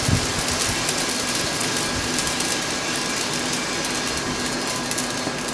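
Steady rush of fans and moving air from a 5 lb coffee roaster, with a rapid scatter of faint high ticks: the beans snapping in second crack.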